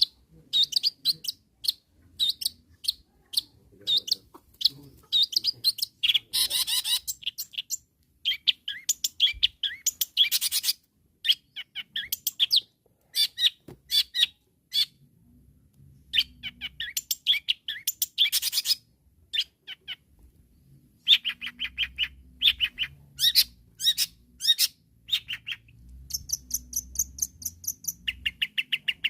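Long-tailed shrike (cendet) singing loudly in fast, chattering phrases of short high notes, broken by brief pauses.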